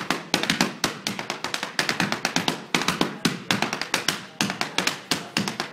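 Irish dance shoes of a line of dancers beating rapid, rhythmic runs of taps on a wooden floor, with short breaks between the runs.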